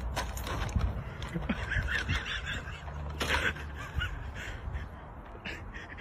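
A mini pig grunting and squeaking in short, quickly repeated bursts, with a louder rough call about three seconds in.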